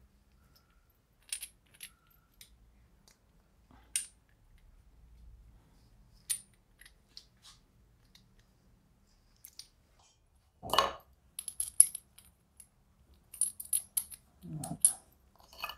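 Scattered light metal clinks and ticks of a spark plug being handled and pushed into a socket and spark-plug spanner by hand. A louder knock comes about two-thirds of the way through, followed by a run of quick clinks near the end.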